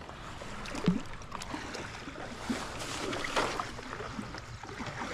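Creek water splashing and trickling, with scattered small knocks and a louder one about a second in.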